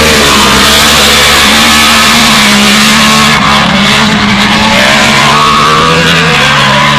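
Autocross race car engines running hard and loud, their pitch shifting with the throttle, with several engines heard at once.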